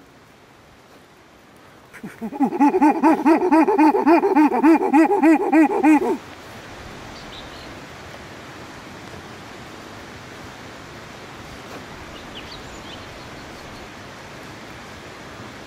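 A man's loud, warbling howl through cupped hands, a mock Bigfoot call, starting about two seconds in and lasting about four seconds, its pitch wavering up and down about four times a second. After it comes a steady faint outdoor hiss with a few faint high chirps.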